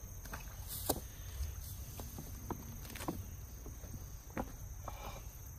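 A cast net being tugged loose from a rock in shallow creek water: faint, scattered small splashes and clicks, about one every half second to second, over a low steady rumble of wind on the microphone.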